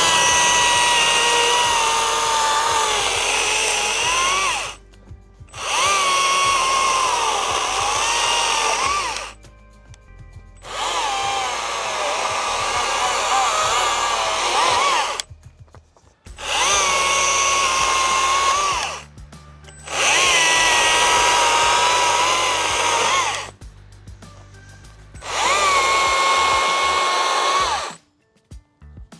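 STIHL MSA 60 C-B 36-volt battery chainsaw limbing a log in six bursts of a few seconds each. Its high electric whine dips in pitch as the chain bites into each limb.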